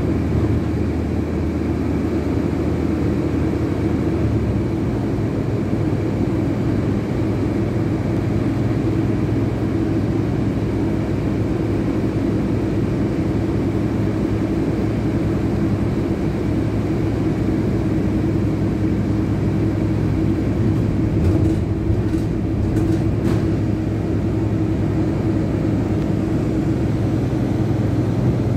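Steady road noise heard inside a vehicle cabin as it drives along a wet highway: tyre noise with a low engine hum, whose note shifts a few seconds in.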